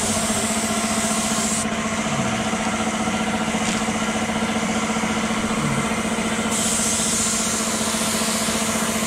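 Gravity-feed paint spray gun hissing as it sprays clear coat. It stops about a second and a half in and starts again about two seconds before the end. Underneath, an air compressor runs with a steady hum.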